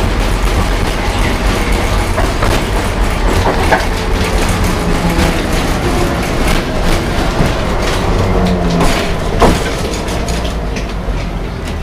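Tram car in motion, heard from inside: a steady low rumble of wheels on rails, with sharp knocks and rattles every few seconds.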